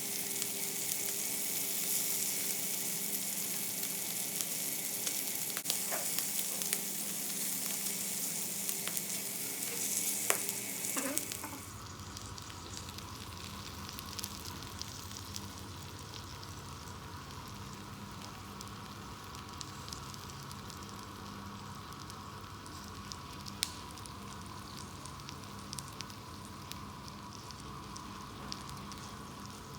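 Pork belly and vegetables sizzling as they cook, with scattered light clicks. A little over a third of the way in, the sizzle drops suddenly to a quieter, steady level.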